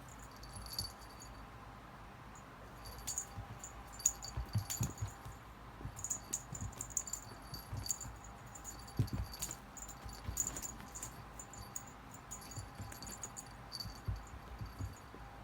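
A cat's small bell jingling on and off in short tinkles, with a few soft low thumps.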